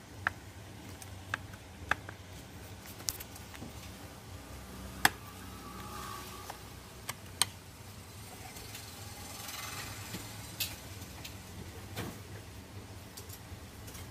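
Scattered light clicks and taps of plastic and metal parts of a photocopier drum unit being handled, the loudest about five seconds in, over a low steady hum.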